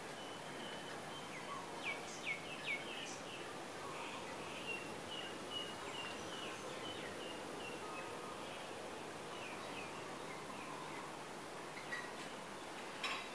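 Small birds chirping: scattered short high notes, a few quick downward-sweeping calls, then a run of repeated chirps, over a steady background hiss.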